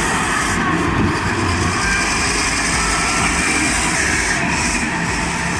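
Heavy machine's engine running steadily under load, a dense mechanical din with faint thin squeals over it.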